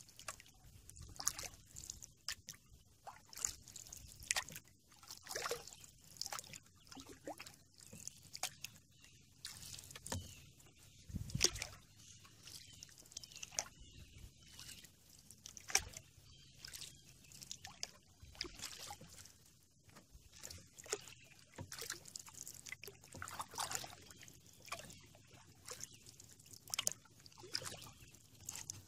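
Canoe paddle strokes on calm water: irregular small splashes, trickling and dripping as the blade dips and lifts. One louder splash or knock comes about eleven seconds in.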